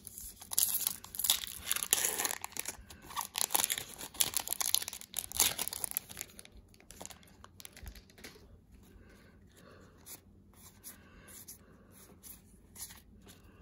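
Foil wrapper of a Pokémon trading-card booster pack being torn open and crinkled, loud and crackly for the first six seconds or so. After that come quieter, scattered rustles and flicks as the cards inside are handled.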